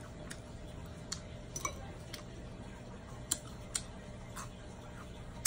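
Metal fork clicking and tapping against a bowl, a handful of light, separate clicks spread over a few seconds, over a faint steady room hum.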